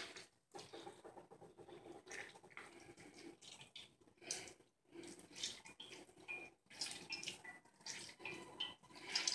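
Faint wet squelching as hands squeeze boiled white radish slices in a plastic colander, with water dripping out in irregular spurts. This is the radish being wrung dry of its cooking water.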